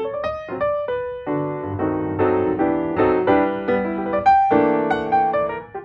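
Background piano music: a steady run of struck notes and chords.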